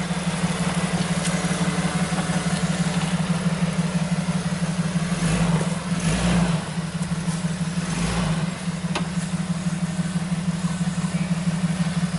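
Jeep Wrangler YJ engine running steadily at low revs as the lifted Jeep crawls slowly over rough ground. A few dull low thumps come about five to eight seconds in.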